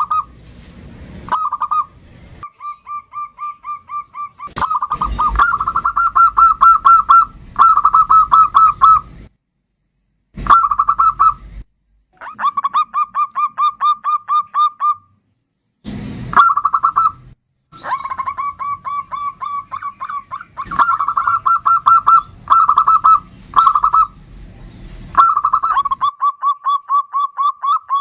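Zebra dove (perkutut) cooing: rapid trains of short, evenly repeated notes in phrases of one to three seconds, with brief pauses between phrases.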